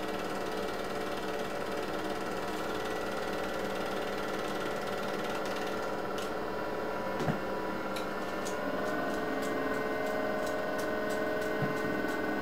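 8mm film projector running with a steady mechanical whir and hum from its motor and film-pulling mechanism. In the second half a series of light ticks comes a few times a second, and the running tone shifts slightly about nine seconds in.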